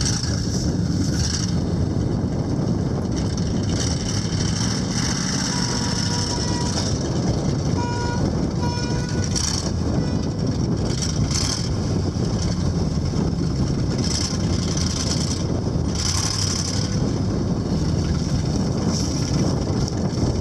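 GMC 6500 grain truck's engine running steadily.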